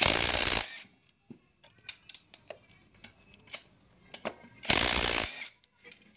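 Cordless impact wrench run in two short bursts, one at the start and one about four and a half seconds later, loosening the cylinder head bolts of a Yamaha Mio Sporty scooter engine. Light metal clicks come between the bursts.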